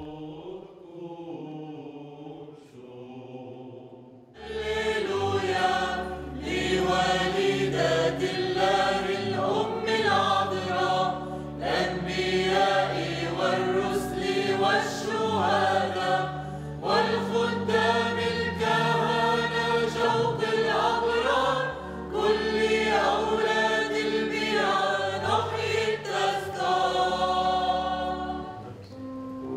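Church choir singing a Maronite liturgical hymn, with low held bass notes underneath. The first four seconds are a quieter sung line, then the full choir comes in.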